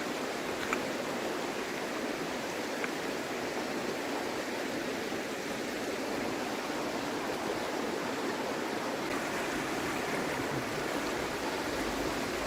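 Creek water rushing steadily over rocks, with a couple of faint clicks early on.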